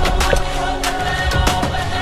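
Background pop music with a steady drum beat and sustained synth chords.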